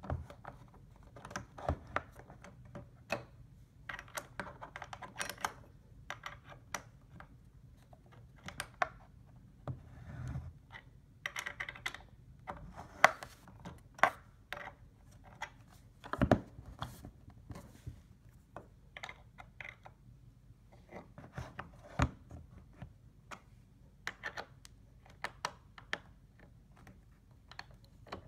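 Screws being driven with a hand screwdriver into a bed frame's height-adjustment fittings: irregular clicks and scrapes of the screwdriver and hardware, with a few sharper knocks, as the screws are tightened to close the gap.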